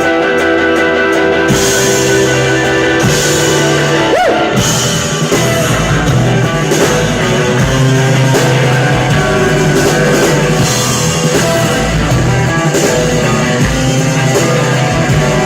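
Live rock band playing an instrumental passage: guitar, with bass and drum kit coming in about one and a half seconds in and driving a steady beat.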